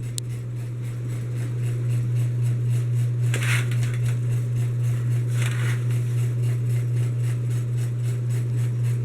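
Hampton Bay Landmark Plus ceiling fan running with a steady low electrical hum from its motor, the buzzing hum this fan gives on some of its speed settings. The hum pulses slightly.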